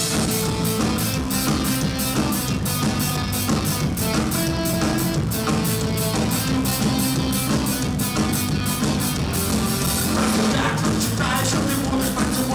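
Live ska-punk band playing an instrumental passage: trumpet and trombone over electric guitar, bass and a drum kit keeping a fast, even beat.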